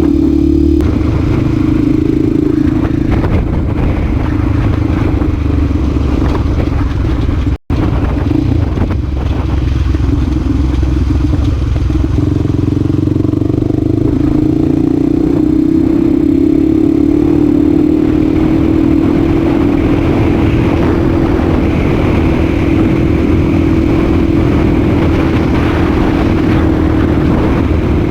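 Honda Tornado 250's single-cylinder four-stroke engine running steadily while ridden, its pitch falling off and then climbing again as the throttle changes. A split-second gap in the sound comes about a quarter of the way through.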